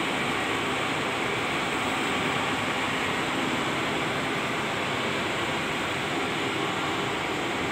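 Steady, even whooshing of the equipment racks' cooling fans, with no change in level or pitch.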